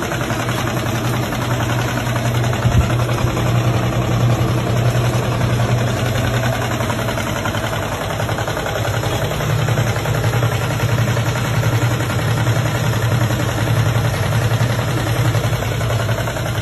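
Washing machine running with a loud, steady low hum.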